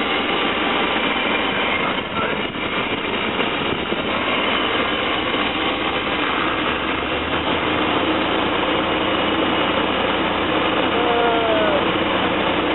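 A van's throttle-body-injected engine running at a steady idle, freshly restarted with new injectors and not yet warm; it runs smoothly until it heats up and then stalls.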